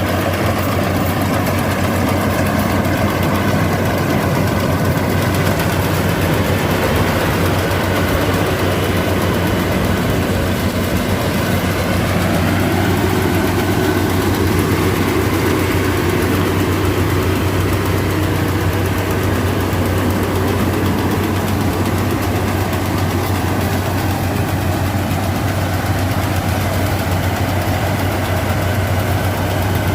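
Yanmar AW82V combine harvester's diesel engine running steadily with a constant low hum, along with the noise of its machinery.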